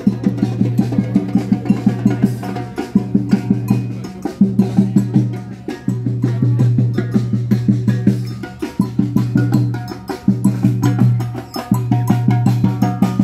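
Parade music led by handheld marching drums beaten in a quick, steady rhythm, over a sustained low note that drops out and comes back every second or two.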